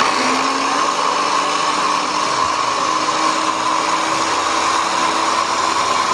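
Electric hand blender running steadily in its chopper bowl attachment, chopping onion, with a steady high whine.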